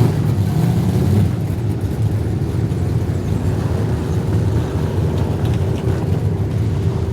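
Street stock race cars' V8 engines running at speed on a dirt oval, a steady loud rumble.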